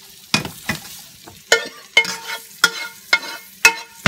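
Metal spoon stirring and knocking against a nonstick frying pan, about seven sharp clinks with a brief ring, over a faint sizzle of butter, onion and garlic sautéing.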